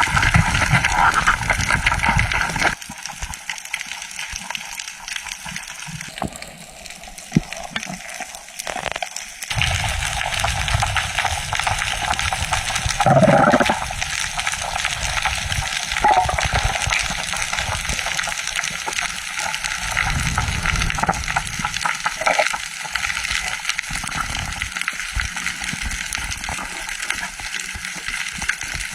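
Rushing, hissing water noise, quieter for a few seconds early and with a louder surge about thirteen seconds in.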